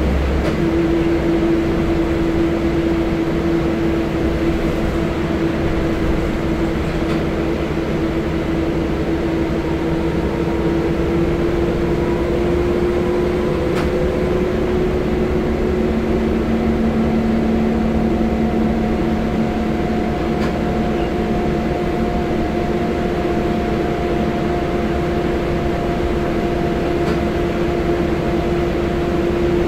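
Scania L94UB single-deck bus heard from inside the saloon while under way: a steady engine and road rumble with a whine from the drivetrain. The whine comes in about half a second in and creeps slowly up in pitch.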